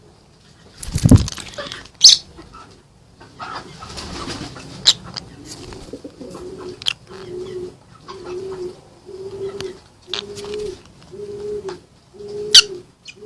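Birds: a brief noisy flutter about a second in, then a steady series of short low notes, about one a second, from around six seconds in, with a few sharp high chirps over them.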